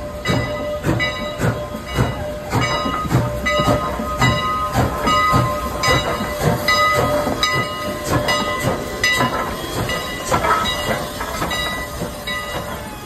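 Canadian National No. 89, a 2-6-0 steam locomotive, chuffing slowly as it pulls past, about two exhaust beats a second with steam hiss. A steady ringing tone sounds over the chuffs.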